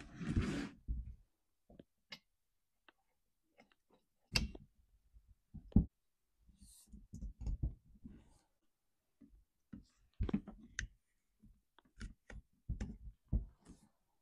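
Scattered clicks and knocks of a Stihl MS 271 chainsaw being reassembled by hand: the new spark plug fitted and the plug boot and air filter put back on.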